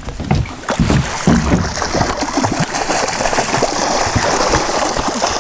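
Water splashing and gurgling against the side of the boat as a hooked salmon is played at the surface and brought to the landing net, the splashing getting denser about a second and a half in.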